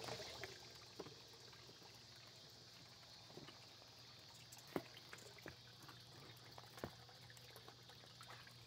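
Faint pond water sounds: a steady low trickle with a few small, sharp splashes and plops as slider turtles stir at the surface, the loudest about halfway through.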